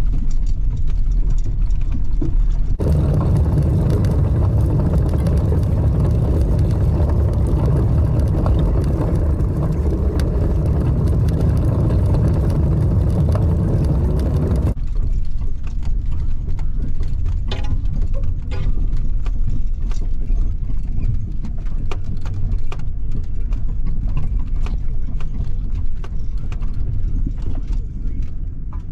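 1996 Ford F-150 pickup heard from inside the cab while driving slowly, a steady low engine drone. From about three seconds in to about fifteen seconds it is louder and fuller, then drops back, with many light clicks and rattles coming through.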